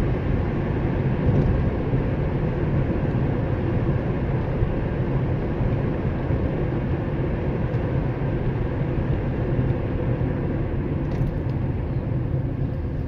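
Steady low rumble of a moving road vehicle with even road noise and a faint engine hum.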